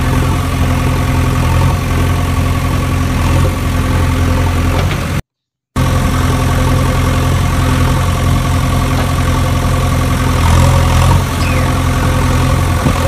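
A steady engine idling, holding an even low hum, which cuts out completely for about half a second roughly five seconds in and then resumes unchanged.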